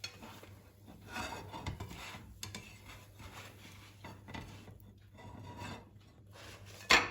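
Irregular soft scraping or rubbing strokes, with one sharp knock near the end.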